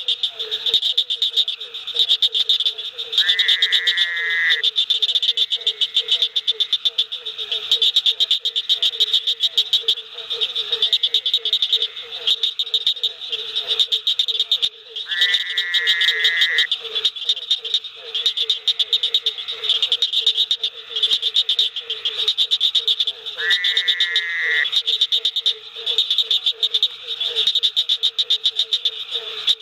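Frog chorus, dense and continuous: a fast pulsing trill sits high and rapid calls sit low, without a break. Three times, a longer call of about a second stands out over the chorus.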